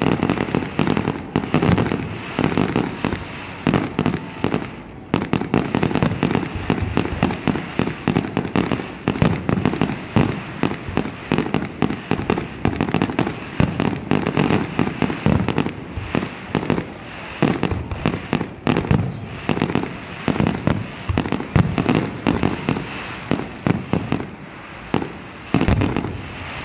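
Aerial fireworks bursting in a rapid, unbroken barrage of bangs.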